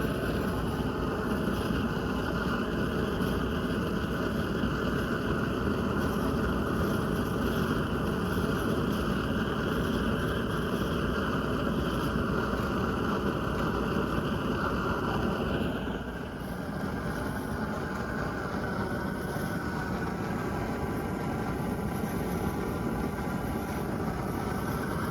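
A machine running steadily, easing briefly about sixteen seconds in and then carrying on.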